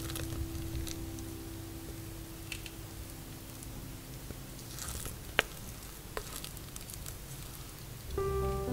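Thick, wet zucchini bread batter sliding and plopping from a bowl into a ceramic loaf dish, with soft scraping as a spatula works it out, and a sharp click a little past halfway.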